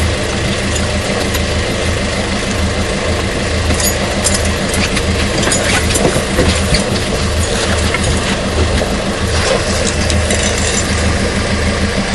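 Small fishing boat's inboard engine idling, a steady low hum that runs evenly, with a few faint clicks over it.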